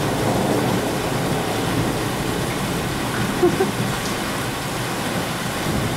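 Steady monsoon rain falling, with a brief short sound about halfway through.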